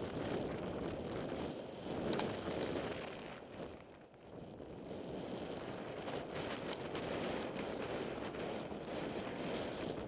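Wind buffeting the rider-mounted camera's microphone during a fast mountain-bike descent on a gravel trail, mixed with the rolling noise of the bike, with a few short clicks and rattles. The rush eases briefly about four seconds in, then picks up again.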